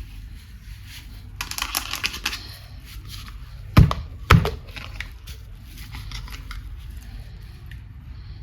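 Plastic toy and packaging being handled: a run of crinkly clicks and crackles, then two sharp knocks about half a second apart.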